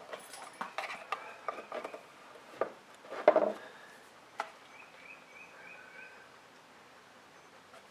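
Plastic trim clicking and knocking as the tabs of a truck's overhead switch housing are pried loose with a small flathead screwdriver, with the loudest knock about three seconds in.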